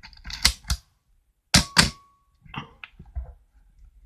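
Canon AV-1 35mm SLR shutter firing twice. Each release is a quick, sharp double clack of mirror and shutter, and there is no 'Canon cough' squeal, so the mirror mechanism is working cleanly. Softer mechanical clicks follow near the end.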